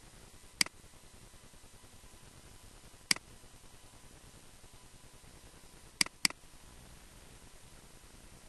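Computer mouse button clicking: two single clicks a couple of seconds apart, then a quick double-click near the end, over a faint steady hiss.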